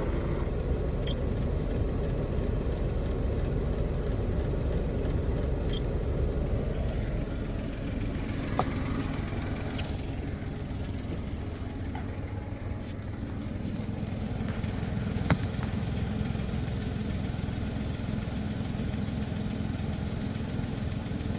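Steady low rumble of an idling engine, with a few faint clicks; no siren sounding.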